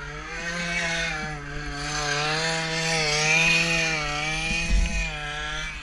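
Go-kart's small two-stroke strimmer engine held at high revs as the kart drives, its pitch wavering slightly up and down. A low bump comes about five seconds in, and the engine eases off near the end.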